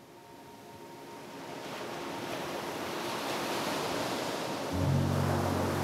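Ocean surf washing onto a beach, fading in and growing steadily louder. Low sustained music notes come in near the end.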